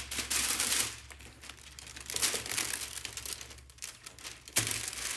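Holographic rainbow wrapping paper crinkling and rustling as a sneaker is handled in it, loudest in the first second and again near the end.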